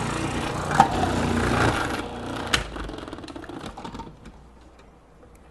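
Food processor motor running with its slicing disc as a cucumber is pushed down the feed tube and sliced, with a couple of sharp clicks. About two seconds in the motor stops and spins down, fading out by about four seconds in.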